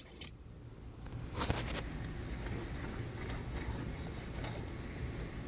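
A few sharp metallic clicks from carburetor parts being handled, the loudest cluster about a second and a half in, over a steady low background rumble.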